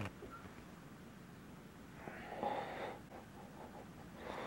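Quiet room with a short, soft breathing or snorting sound about two seconds in.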